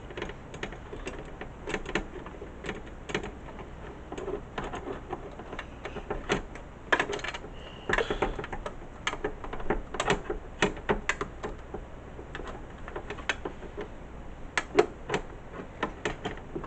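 Irregular small clicks and knocks of hands handling parts inside a desktop PC case while fitting a hard drive.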